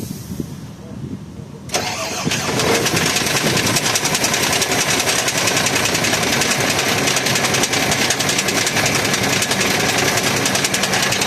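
Weichai WP13 diesel truck engine starting about two seconds in and then running loud and steady with a fast, hard knock, the sign of serious internal damage ("everything's bad in there").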